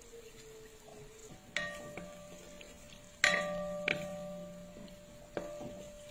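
A metal spatula knocks against a metal cooking pan four times while stirring simmering chicken. Each knock leaves the pan ringing with a clear metallic tone; the loudest comes about three seconds in.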